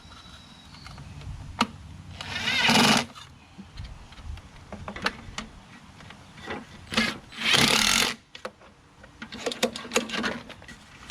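A cordless drill/driver spins in two runs of about a second each, driving in the bolts that hold the recoil starter housing, with light clicks and clatter of tools and parts between and after.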